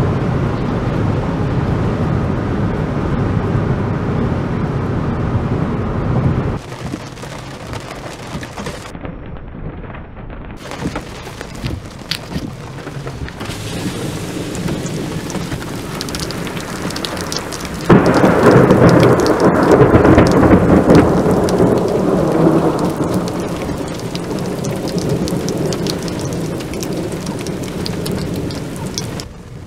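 Heavy rain falling, with drops ticking against the glass. About 18 seconds in comes the sudden loud crack of a close lightning strike's thunder, which rolls on and fades over several seconds. The first few seconds hold a steady low rumble that cuts off abruptly.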